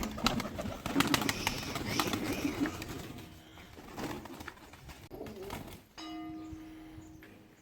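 Fancy pigeons cooing, with many sharp clicks among the calls over the first few seconds. Near the end a steady low tone holds for about a second and a half.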